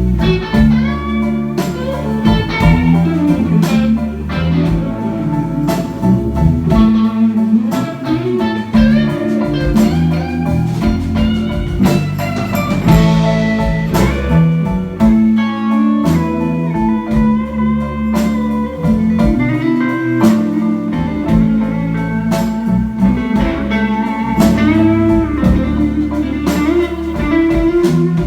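Live band playing a guitar-led, bluesy instrumental break, with electric guitar over bass, keys and steady drums.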